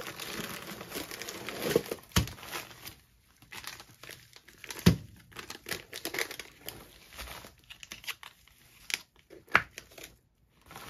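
Plastic bags of paydirt and their packing crinkling and rustling as they are handled in a shipping box, with three sharp knocks spread through it.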